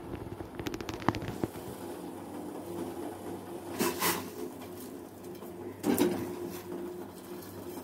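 Water boiling in a stainless steel pot as blocks of Maggi instant noodles are dropped in by hand, with a few light clicks near the start and two louder splashes about four and six seconds in.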